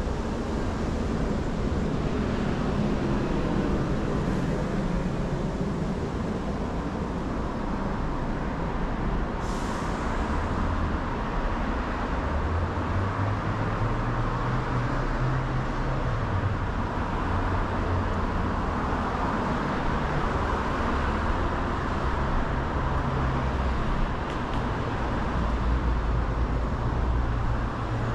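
Steady traffic on a busy city road, with vehicles passing continuously. A heavier engine drone swells around the middle and again near the end, and a short hiss comes about nine seconds in.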